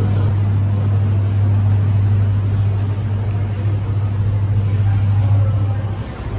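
Steady low hum over a wash of background noise, dipping briefly near the end.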